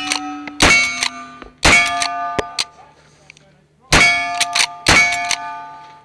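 Uberti 1866 Yellowboy lever-action rifle fired four times in two pairs, each shot followed by steel targets ringing, with shorter metallic clicks of the lever action between shots.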